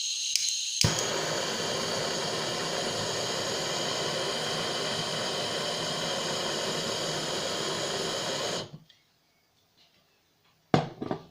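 Butane blowtorch burning with a steady hiss for about eight seconds and then cut off abruptly, its flame played over a freshly cast silver solder ingot to melt out small surface defects. A few sharp clicks follow near the end.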